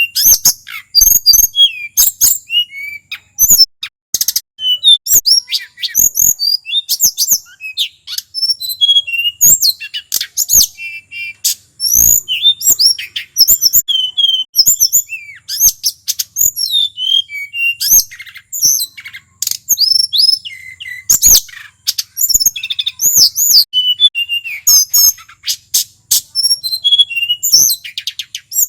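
Male tledekan gunung, a Cyornis blue flycatcher, singing a long unbroken run of quick, varied high whistled phrases that slide up and down, with sharp clicks between the notes.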